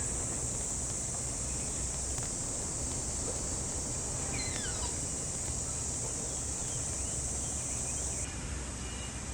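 Cicadas buzzing in one steady, shrill drone that cuts off near the end, with a couple of brief falling whistles about halfway through.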